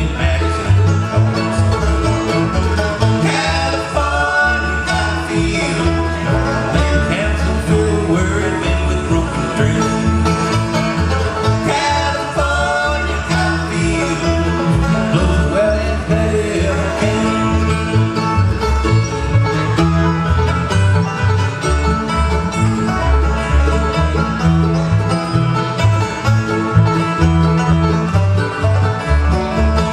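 A bluegrass band playing live on acoustic instruments: five-string banjo, mandolin, acoustic guitar and upright bass, with the bass keeping a steady pulse under the picked notes.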